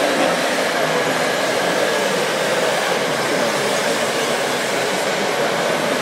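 Steady whirring of radio-controlled construction models' electric drive motors as the model tracked loader drives, with a slightly wavering pitch.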